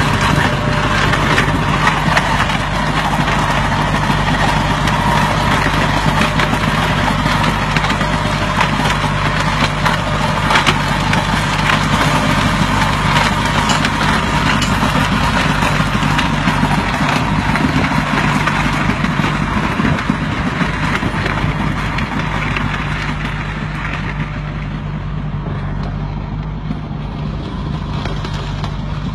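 Tractor engine running steadily under load, driving an AgroTIGER Crusher 1300 stone crusher whose rotor cracks and grinds stones in the soil, with many sharp cracks over the engine hum. It grows slightly quieter and duller near the end.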